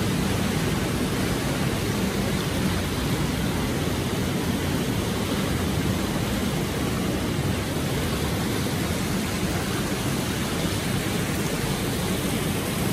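Steady rush of water pouring from the spouts and jets into an indoor swimming pool.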